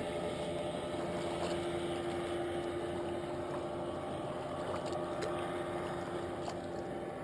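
A motor running steadily with an even hum, a few faint clicks over it.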